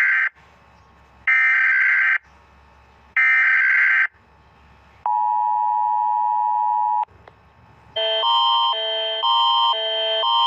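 Emergency alert alarm tones, given as Bulgaria's: electronic beeps about a second long and a second apart, then a steady two-second tone, then a repeating chime of alternating notes starting about eight seconds in.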